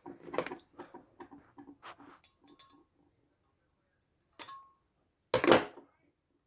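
Blue painter's tape being peeled and torn: small crackles and clicks over the first few seconds, then a short rip about four and a half seconds in and a louder, longer rip about five and a half seconds in.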